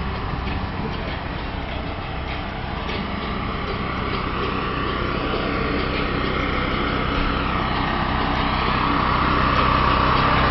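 Portable petrol generator running steadily, its engine note growing louder toward the end.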